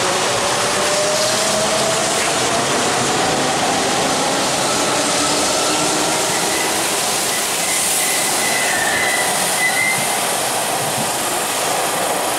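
Hanshin Railway vermilion-and-cream electric train accelerating out of the station past the platform: a steady rush of wheels on rail with a motor whine slowly rising in pitch over the first half. A thin high squeal is heard briefly in the middle.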